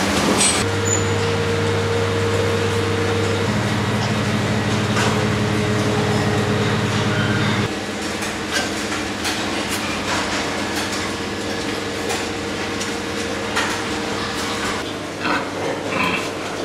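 Steady machinery hum over a constant hiss inside a pig shed. The hum stops about eight seconds in, leaving the hiss with scattered knocks and clicks.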